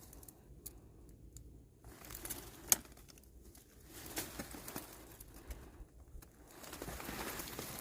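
Intermittent rustling and crinkling, like dry leaves or brush being handled or brushed through, with one sharp snap a little before the middle and louder rustling near the end.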